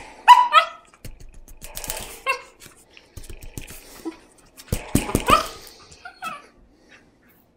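Small puppy giving short, high yips and barks in play, with scuffling and bumps as it wrestles on a dog bed. The sound stops abruptly about seven seconds in.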